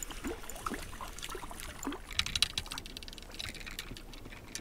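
Hooked crucian carp being reeled in on a float rod, splashing at the surface, with a quick run of sharp splashes and clicks about two seconds in.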